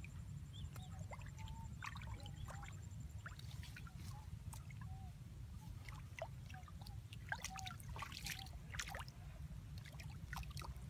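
Shallow water trickling and sloshing as hands work inside a submerged sack fish trap, with scattered small splashes. Faint short chirps recur through it.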